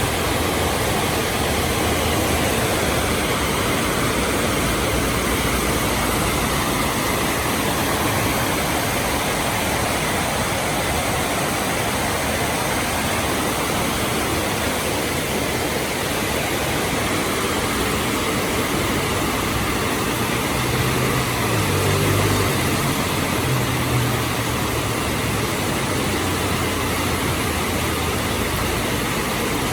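Heavy rain falling steadily in a continuous hiss. A motor vehicle's engine hums low underneath, growing louder for a few seconds about two-thirds of the way through.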